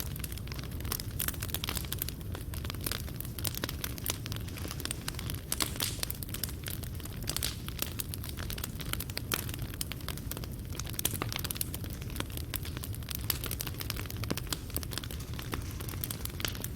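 Fireplace fire burning: a steady low rumble with dense, irregular crackling and snapping of burning wood and coals.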